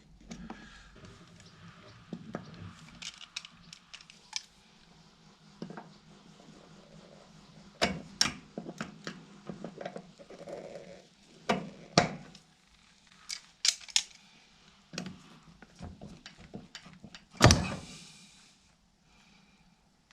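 Hand tools and metal parts clicking, tapping and knocking at a ride-on mower's wheel axle as the split pin and retaining clip are worked off. The clicks come irregularly, with the loudest knock near the end followed by a brief scrape.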